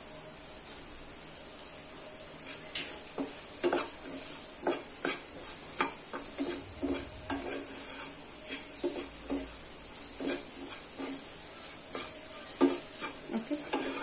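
A spatula stirring and scraping chopped okra frying in a pan, over a faint steady sizzle. The scraping strokes start about two and a half seconds in and come irregularly, roughly one or two a second.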